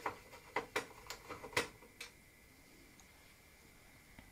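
Light clicks and taps of small metal screws being handled and sorted, about eight in the first two seconds, then it goes nearly quiet.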